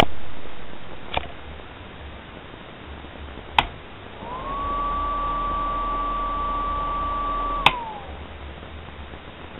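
Silavent extractor fan switched on with a click. Its motor whines up to speed, runs with a steady high whine and low hum for about three seconds, then another click cuts it and the whine falls as it winds down. A lighter click comes about a second in.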